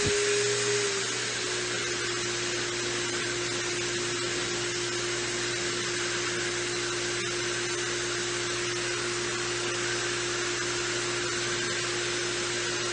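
A pet grooming machine runs steadily through a hose worked over a dog's coat, making a continuous whooshing hum with a steady whine that dips slightly in pitch about a second in.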